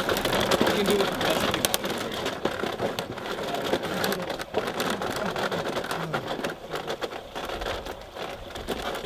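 Steady rush of a river, with scattered light knocks and clicks from wooden deck boards and rope being handled.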